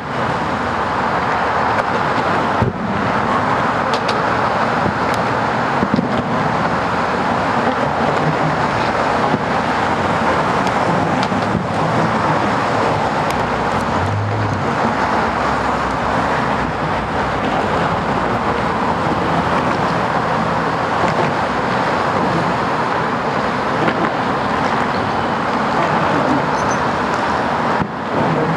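Steady road-traffic noise, with a few faint sharp pops.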